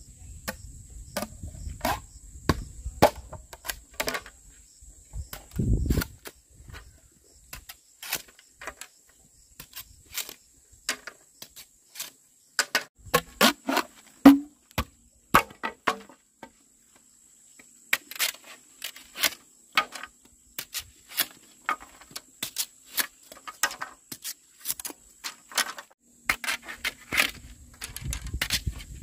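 A steady high-pitched insect drone, with many irregular sharp clicks and snaps throughout and a dull thump about six seconds in.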